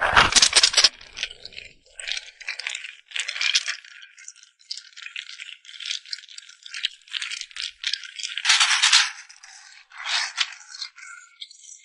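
Irregular rattling and scraping handling noises: a string of short, uneven bursts, loudest at the very start and again a little past the middle.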